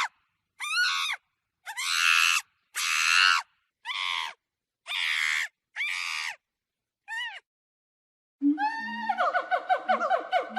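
A series of about eight short, harsh animal screams, each call rising and falling in pitch, with silent gaps between them. From about eight seconds in, a different call follows: a fast run of pulses over a steady low tone.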